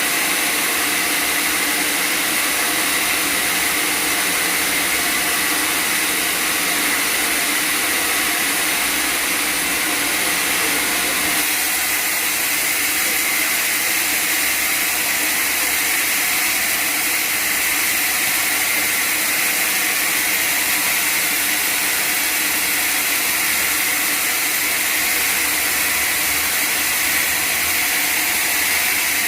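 Sawmill machinery running steadily: a continuous loud mechanical drone with a high whine, its tone shifting slightly about eleven seconds in.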